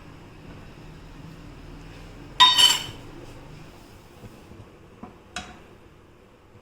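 Metal kitchen utensil clattering against cookware, a brief ringing clang about two and a half seconds in, then two lighter clinks near the end.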